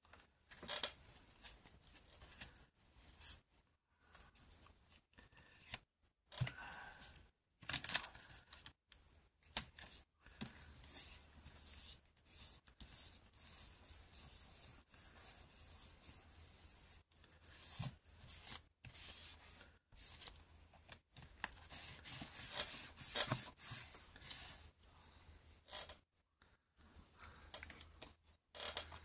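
Paper being handled by hand: crinkling, rustling and rubbing in irregular bursts.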